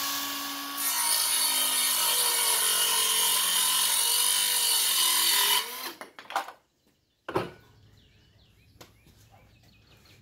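Cordless circular saw with a 24-tooth framing blade cutting wood. The motor whines at speed, the blade bites into the board about a second in and cuts for about five seconds, then the saw is released and spins down. A couple of sharp knocks follow.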